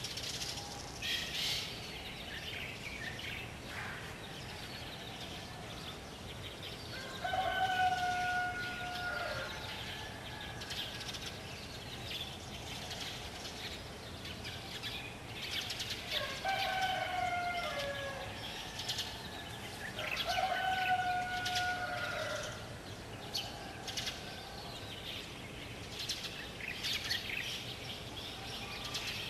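A rooster crowing three times, each crow held and then falling away at the end, with small birds chirping in between.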